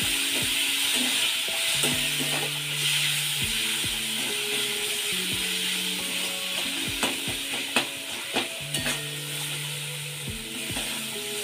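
Onions and tomatoes with spices sizzling in hot oil in a metal kadhai while a spatula stirs and scrapes them, with a few sharp taps of the spatula on the pan partway through. Soft background music plays underneath.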